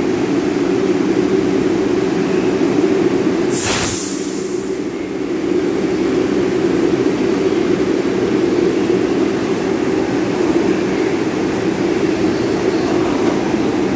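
R62 New York subway train starting out of the station and rolling past: a steady hum and running noise from the cars, with a short, loud hiss of air about four seconds in.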